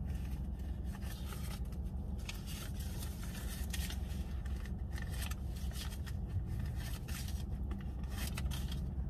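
Car engine idling, a steady low hum heard inside the cabin, with scattered rustling and light scraping from rummaging through a purse for cash.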